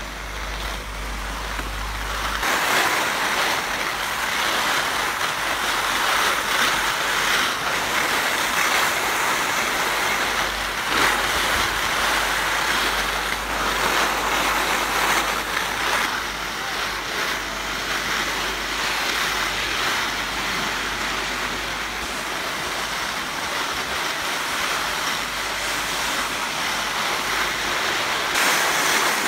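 Salomon alpine skis sliding downhill over groomed snow, a steady hiss and scrape, with wind rushing over the microphone.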